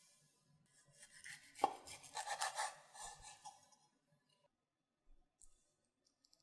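Dry crackling and scraping of food being handled in preparation, lasting about three seconds, with one sharp click about a second and a half in.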